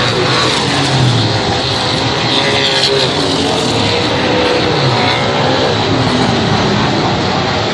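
Race car engines running hard during a race, their pitch rising and falling as the drivers work the throttle.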